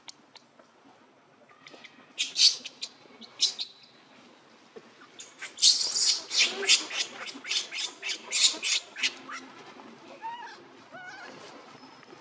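Baby macaque screaming in shrill, repeated squeals, a few about two seconds in and a long run from about halfway, then softer whimpering cries near the end. It is a young monkey's distress at being pushed away from its mother and denied nursing.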